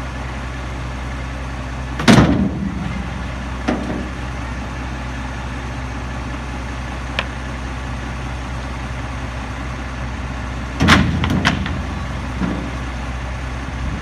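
Autocar Xpeditor front-loader garbage truck idling steadily. Two loud bangs, one about two seconds in and another about eleven seconds in, and a few lighter knocks come from trash carts being handled beside the truck.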